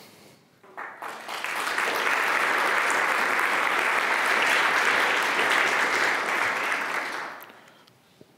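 Audience applauding. The clapping builds about a second in, holds steady, then dies away after about seven seconds.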